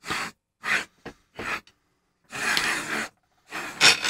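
Smooth steel rods being pushed through linear bearings, heard as a series of short, uneven gritty sliding sounds. The longest lasts nearly a second, about two and a half seconds in.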